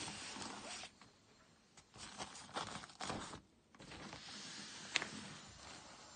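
Rustling and scraping of a black padded nylon carrying case's fabric being handled, with a single sharp click about five seconds in.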